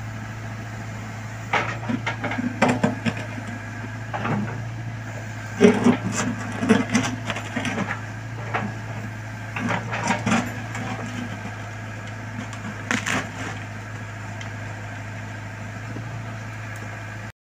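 Backhoe loader's engine running steadily while its bucket digs into soil and tree roots, with scattered cracking and crunching knocks, the loudest about six seconds in. The sound cuts off suddenly near the end.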